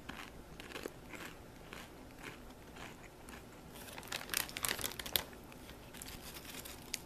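Foil potato chip bag crinkling and chips rattling as a hand reaches in and rummages, with the loudest crackling about four to five seconds in.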